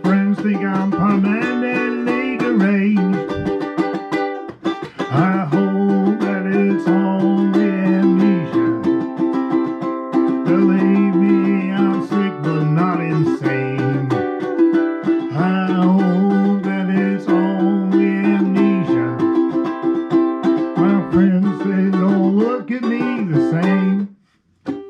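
Ukulele strummed in chords with a steady rhythm under long held melody notes. The music stops suddenly about a second before the end.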